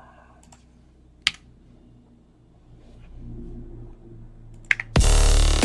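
A few sharp clicks at a computer keyboard and mouse, with a faint low hum building from about three seconds in; about five seconds in, loud distorted electronic bass music starts playing back, a dubstep-style bass made with Ableton's Drum Sampler and Saturator.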